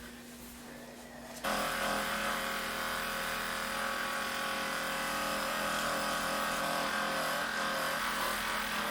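Hypervolt percussion massage gun switched on about a second and a half in, its motor then running at a steady speed with an even hum.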